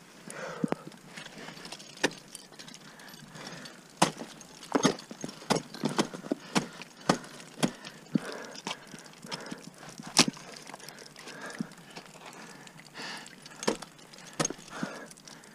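Ice-climbing gear being handled on the ice: irregular sharp knocks and metallic clinks from ice screws, carabiners and crampons. The loudest strikes come about four and ten seconds in.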